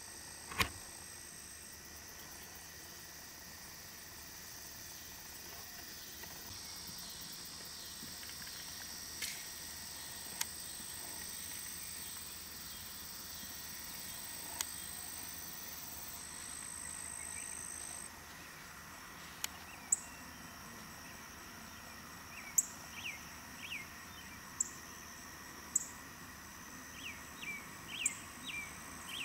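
Outdoor field ambience: a steady high insect trill over a hiss of crickets, broken by a few sharp clicks. From about two-thirds of the way in come short, high chirps repeating every second or so.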